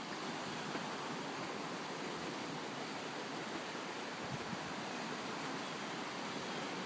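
A river running high and fast after heavy rain, a steady rushing of water.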